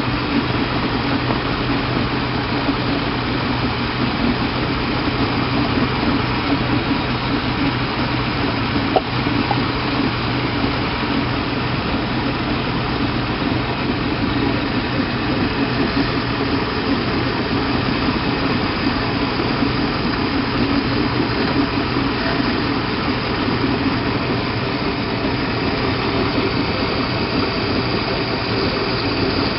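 Mercruiser 5.0L carbureted V8 marine engine idling steadily with the air-intake cover off the carburetor, one short click about nine seconds in.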